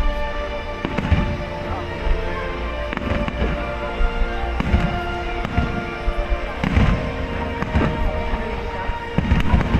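Fireworks going off in repeated booms and crackles, over music with steady sustained tones.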